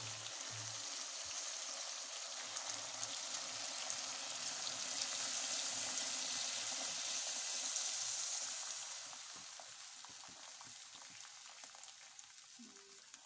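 Water poured from a jug into boneless chicken frying in hot oil and masala in a clay pot, setting off a steady sizzling hiss that fades from about nine seconds in.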